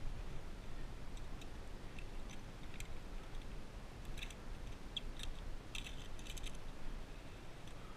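Via ferrata lanyard carabiners clicking and clinking against the steel safety cable as they slide along it. The light metallic clicks are scattered at first and come in quick clusters from about four seconds in, over a steady low background rumble.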